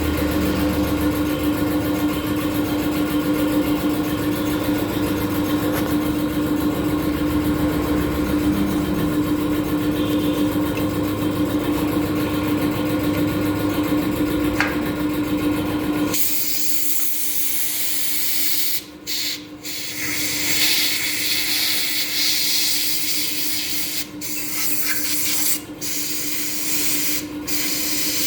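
A steady machine hum with one held tone. About halfway through it gives way to the loud hiss of a spray jet, which cuts out briefly several times.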